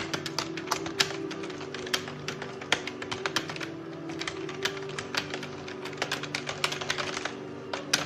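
Typing on a computer keyboard: quick, irregular key clicks, several a second. Under it, background organ music with steady held notes.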